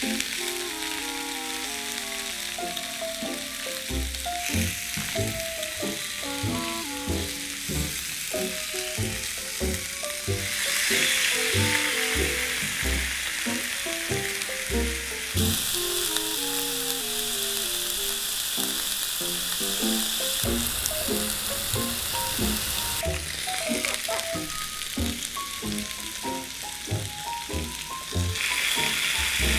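Salmon fillet sizzling on the hot plates of a Cuisinart waffle maker, the sizzle louder from about eleven seconds in and again near the end. A melodic background music track plays underneath.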